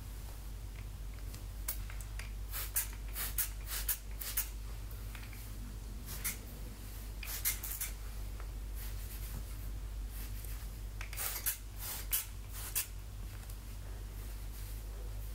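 Plastic trigger spray bottle spritzing water onto long hair: short hissing sprays that come singly or in quick runs of two to four, at irregular intervals.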